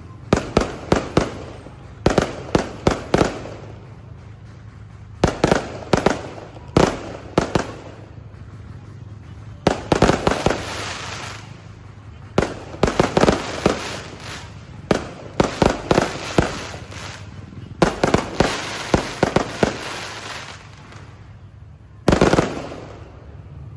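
Aerial fireworks display: rapid volleys of sharp shell bursts in clusters every second or two, with crackling between and brief lulls, the loudest burst of volleys near the end.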